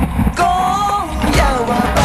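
Background pop music with a singing voice.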